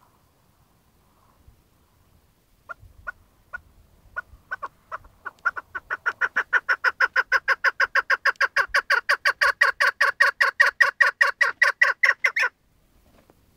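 Chukar partridge calling: a few separate sharp notes about three seconds in, speeding up into a fast, even run of about six calls a second that stops abruptly near the end.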